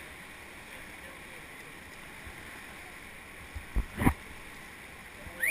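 Rushing river rapids: a steady hiss of choppy whitewater around a raft. About four seconds in come two loud thumps close together.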